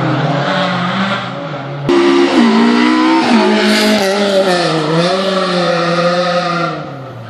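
Rally car's engine revving as it passes close, suddenly louder about two seconds in; its pitch dips and climbs again, then the sound fades near the end.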